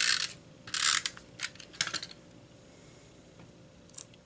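Tape runner drawn across paper in two short scratchy strokes, followed by a few light clicks and taps of paper and trim being handled.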